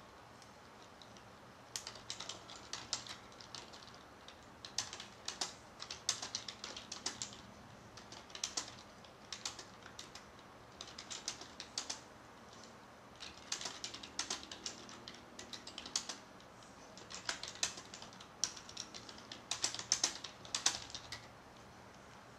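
Rapid sharp clicks in irregular bursts, starting about two seconds in and coming in clusters every second or so.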